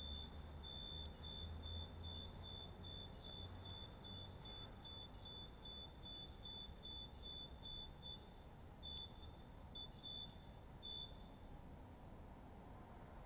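A faint, thin, high-pitched tone, steady at first, then breaking into a run of short beeps before it stops near the end, over a low background rumble.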